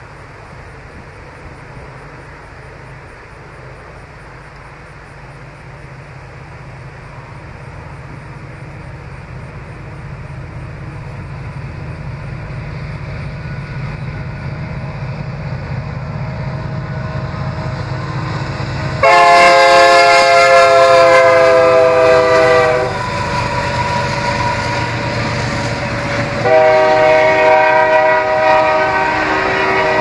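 Freight train approaching, its low rumble building steadily louder. The locomotive's air horn then sounds a long blast of several notes together, about 19 seconds in and lasting some four seconds, and a second blast begins a few seconds later as the cars pass.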